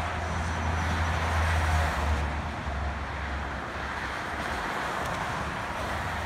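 Cars passing on the highway below: tyre and road noise that swells about a second or two in and then eases off, over a low steady rumble.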